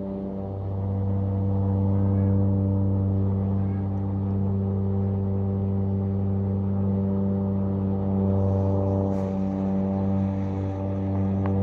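Corded electric lawnmower running steadily with a constant hum.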